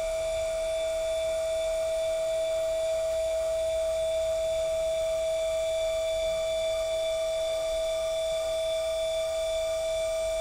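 Celestron CGX-L equatorial mount's right-ascension drive motor whining as the mount slews in RA: one steady high whine with a few fainter overtones, unchanging in pitch and level.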